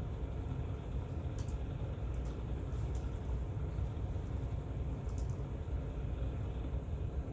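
Steady low background rumble, with a few faint high ticks here and there.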